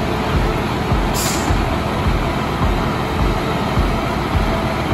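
Sewer cleaning and vacuum truck running steadily under working load: a loud, even mechanical rush with an uneven low throb.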